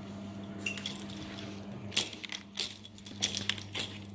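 A steady low electrical hum, with several sharp metallic clinks and clicks in the second half.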